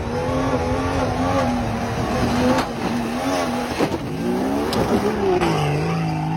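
Vehicle engine running under load over rough ground, with a low rumble and a pitch that wavers. The pitch sags about five and a half seconds in, then rises again.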